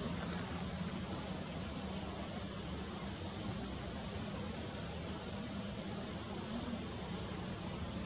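Insects calling steadily, a high even pulse about twice a second, over a low steady hum of distant traffic.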